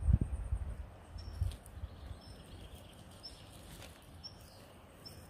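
A small bird repeating a short, high call about once a second. A few low thumps of handling noise come in the first second and a half, the loudest right at the start.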